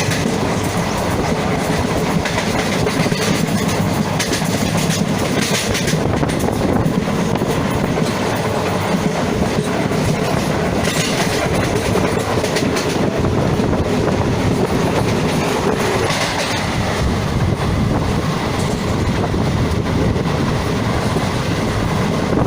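A moving train heard from aboard, its wheels running over the rails with a steady clickety-clack and a continuous rumble.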